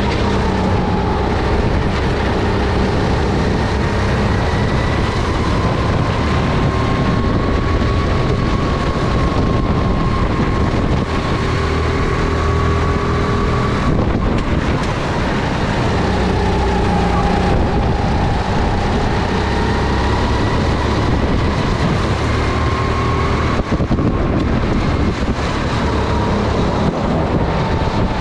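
Single-cylinder four-stroke Honda GX270 engine of a SODI RT10 rental kart running at racing speed. Its note rises as it accelerates and drops several times as the driver lifts for corners.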